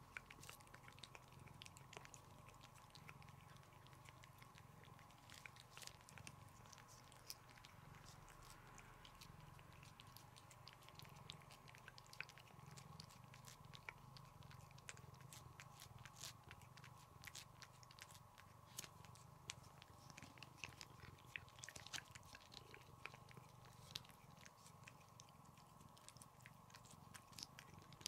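A cat licking paste from a squeezed treat tube: faint, quick wet clicks and smacks of the tongue and mouth.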